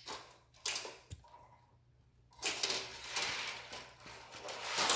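Hard plastic toy pieces clicking and rattling as they are handled on a toy airport tower playset. There are a few sharp clicks in the first second, a short quiet spell, then a longer stretch of rattling.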